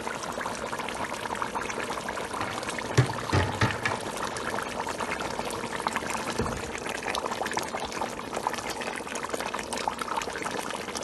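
Pot of potato porridge, potatoes in a thick tomato-and-pepper sauce, bubbling on the stove with the lid off: a steady crackling burble as it is stirred with a wooden spatula. A few dull knocks come around three seconds in and one more a little past six seconds.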